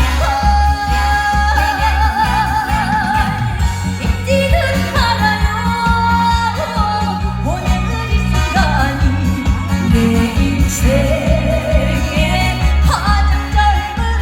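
Live amplified song: a singer holding long notes with a wide vibrato over a backing track with a steady bass beat, heard through loudspeakers.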